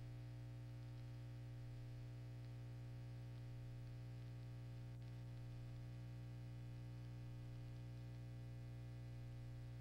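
Steady low electrical hum with a faint hiss, and one faint click about halfway through.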